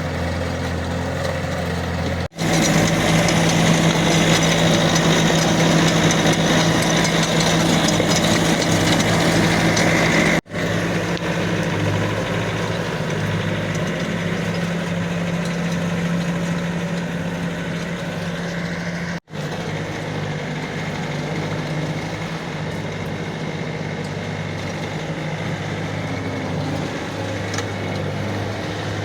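Bobcat S510 skid steer's diesel engine running steadily as the machine drives on newly fitted steel over-the-tire tracks. The sound breaks off abruptly for an instant three times.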